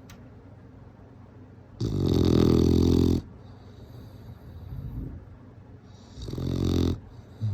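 Bulldog snoring in its sleep: a loud rattling snore about two seconds in, a soft breath, then a shorter loud snore near the end.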